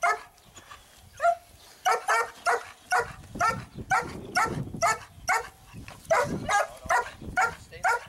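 6½-month-old puppy barking repeatedly, about two to three barks a second, in agitation at an approaching protection-training decoy.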